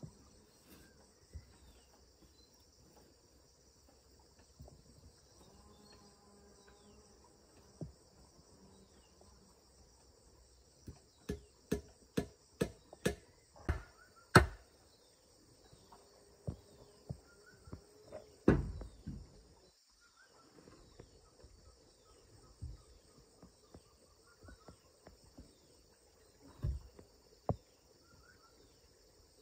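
A steady high chorus of insects, with a run of about eight sharp knocks partway through and a few more later: a wooden stake being struck to drive it into the ground.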